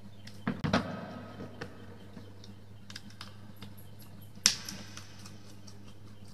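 Small clicks and knocks of hands handling copper wires and a plastic wall socket while wiring its terminals, with a sharper knock about four and a half seconds in. A low steady hum runs underneath.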